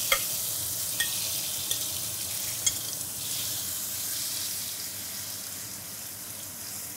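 Food sizzling as it fries in a hot pan. A utensil clicks against the pan four times in the first few seconds, and the sizzle slowly grows quieter.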